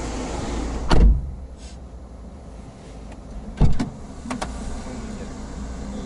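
Two heavy thumps of car doors being shut, about a second in and again near four seconds, followed by a pair of light clicks. After the first thump the outside hiss drops away.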